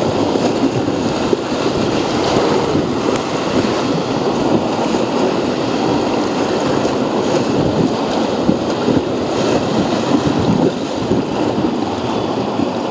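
Whitewater rapids rushing and churning around an inflatable raft, a steady loud noise of moving water with occasional splashes.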